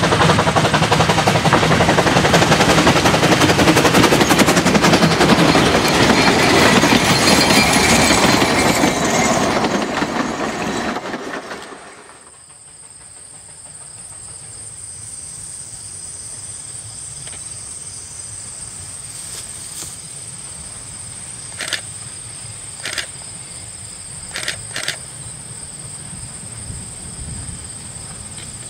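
Two-foot-gauge steam locomotive passing close and working hard, its exhaust beating fast and loud. About twelve seconds in the sound drops away sharply to a quiet outdoor bed with a steady high whine and a few short sharp sounds.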